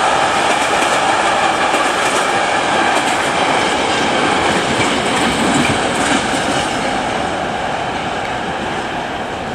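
Container freight train's wagons rolling past, a steady rumble and rattle of wheels on rail that slowly fades over the last few seconds as the end of the train moves away.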